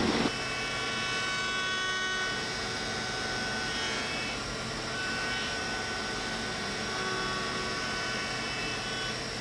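CNC machining centre (DMG Mori DVF 5000) with its spindle running and an end mill taking light 3D-surfacing and floor-finishing passes in a metal part: a steady machine hum with a high cutting whine of several tones that shift slightly as the tool moves along the surface.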